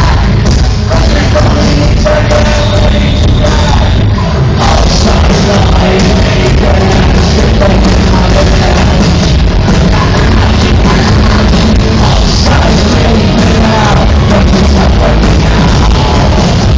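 Loud live electro-industrial band music with heavy bass and vocals, recorded on a cell phone in a concert hall.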